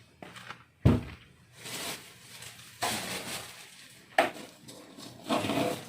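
Objects being handled and set down while looking for a place to put a part: a sharp knock just under a second in, then bouts of scraping, rustling and clinking, with another sharp click about four seconds in.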